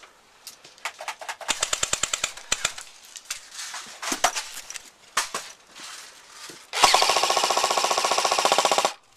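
Airsoft electric guns firing on full auto: a rapid burst of clicking shots early on, a few single cracks, then a loud, unbroken two-second burst with the gearbox's whir under the rapid shots, cutting off sharply near the end.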